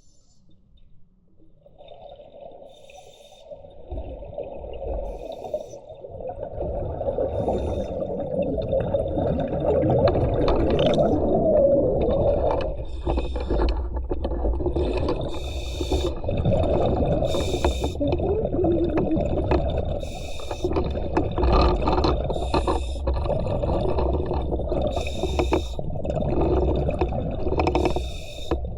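Muffled water noise heard underwater through the camera, with gurgling and irregular bursts of hissing, swelling from faint to loud over the first several seconds.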